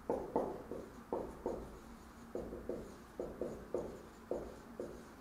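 Handwriting: about a dozen short, irregular taps and strokes of a writing tool as symbols are written out.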